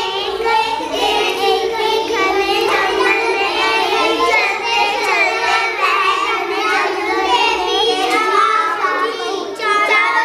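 A group of young children all reading aloud at the same time, their voices overlapping in a continuous babble with no pauses, each racing to read fastest.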